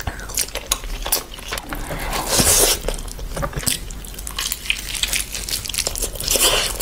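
Close-miked eating by hand: wet chewing and lip smacking, with fingers squishing through rice and gravy and biting into a roasted mutton leg. Many small clicks, with a couple of louder wet smacks, one about midway and one near the end.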